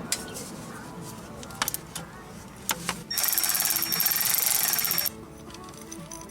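Background music with scattered sharp clicks. About three seconds in, a power tool runs for about two seconds with a fast rattling buzz and a steady high whine, then stops abruptly.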